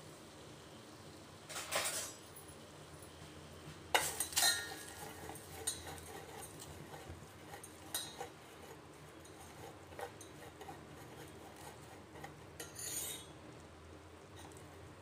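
A steel spoon scraping and clinking against a small stainless steel pan, stirring sugar as it melts into caramel. The scrapes and clinks come irregularly, a few seconds apart.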